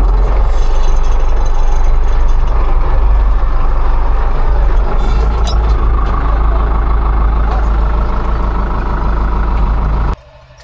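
Farm tractor's diesel engine running steadily while working the vineyard, a loud, deep drone that cuts off suddenly about ten seconds in.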